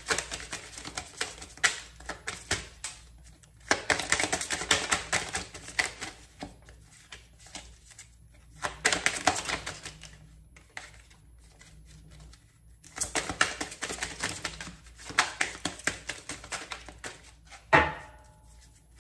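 A deck of tarot cards being shuffled by hand: rapid clicking of the cards in several bursts with short pauses between. One sharp knock near the end.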